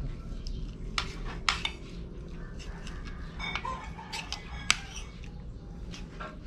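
Spoons and forks clinking and scraping on ceramic dinner plates during a meal, in scattered sharp clicks over a steady low hum.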